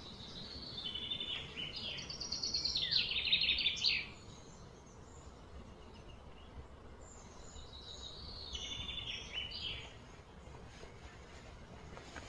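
A songbird singing two phrases of quick, repeated high notes: a longer one that grows louder and stops abruptly about four seconds in, and a shorter one a few seconds later.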